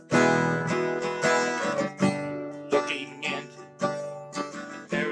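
Background music: an acoustic guitar strumming chords, each stroke ringing on, in an instrumental gap between sung lines of a song.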